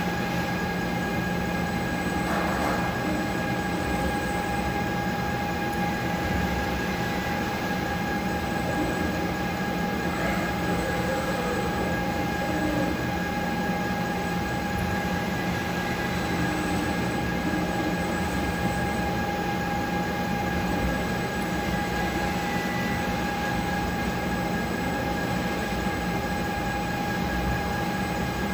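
Concrete 3D printing machinery running steadily, a constant mechanical noise with a fixed whine.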